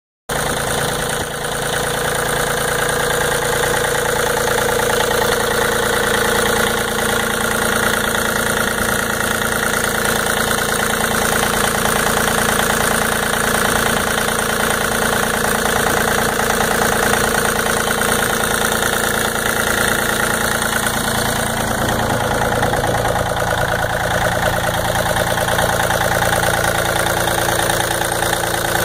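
2005 John Deere 3203 compact tractor's three-cylinder diesel engine idling steadily, heard close up with the hood open. The tone shifts slightly about 22 seconds in.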